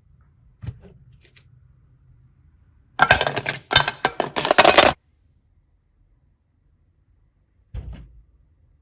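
Small hard objects being handled: a click, then about two seconds of dense clattering rattle, then a softer knock near the end.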